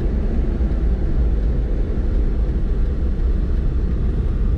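Daihatsu Midget II's three-cylinder engine running steadily as the little truck drives along, heard from inside its small cab as a low, even rumble.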